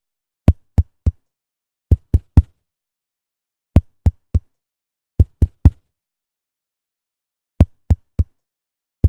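A microphone tapped with a fingertip, as in a mic check: short, low thumps in quick sets of three, five sets in all, with dead silence between the sets.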